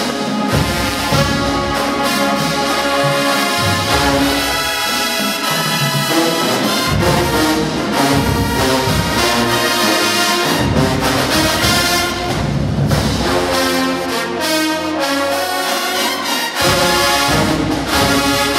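A large show-style marching band playing loudly, led by its brass: sousaphones and massed horns sounding chords and melody together.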